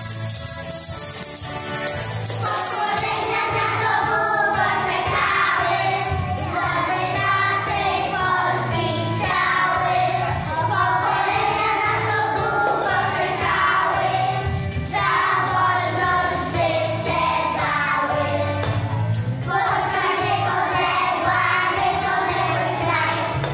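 Group of young children singing a song together over backing music with a steady beat. In the first two seconds the rattle of shaken hand-held percussion instruments ends, and the singing begins.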